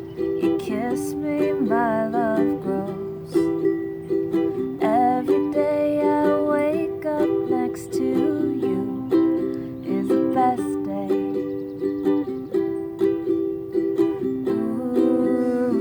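Music: a string instrument strummed in steady, repeated chords, with a higher melody line that bends and wavers in pitch over it now and then.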